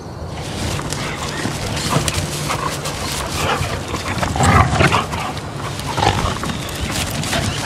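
A retired greyhound and a Labrador retriever mix play-fighting: a run of rough growls and grunts, loudest about four and a half seconds in.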